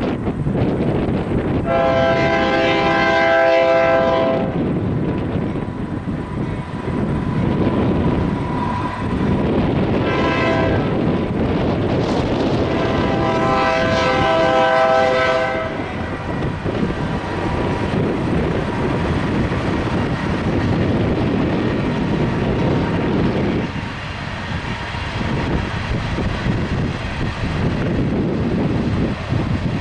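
BNSF diesel freight locomotive's horn sounding for a grade crossing: a long blast, a short one about ten seconds in, then another long blast. After that the locomotive and freight cars rumble past on the rails.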